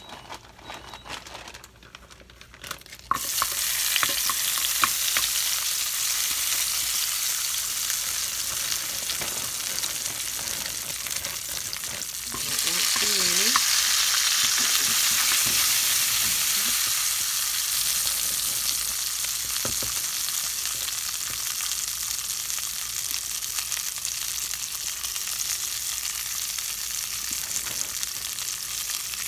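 Seasoned fries dropped into hot oil in a stainless-steel skillet, with a few clicks as the pieces land. A loud, steady sizzle starts suddenly about three seconds in, and it swells again near the middle when more fries go in.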